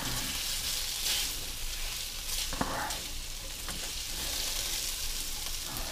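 Meatballs and onions sizzling in a frying pan, a steady hiss.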